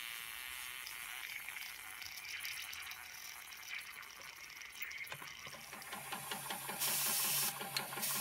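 Steam hissing and sputtering from small leaks around the fittings of an early Schoenner toy steam engine's brass boiler, with two short, louder bursts of steam near the end.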